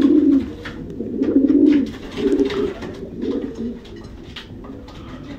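Domestic racing pigeons cooing in a loft, several bouts about a second apart, fading near the end, with a brief flutter of wings at the start.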